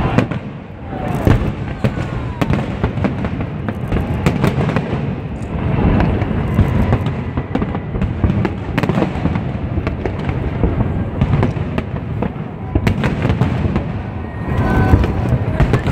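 Dense barrage of aerial fireworks shells bursting: rapid, overlapping bangs and crackles over a continuous low rumble.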